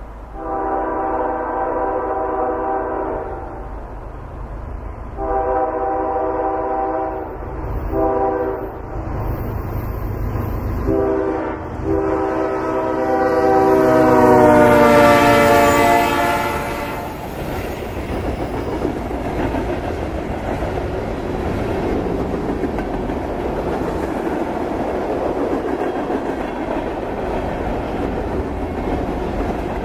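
Diesel freight locomotive's air horn sounding the grade-crossing signal: two long blasts, a short one, and a final long blast that drops in pitch as the locomotive passes. The horn gives way to the steady rumble and clickety-clack of freight cars rolling by.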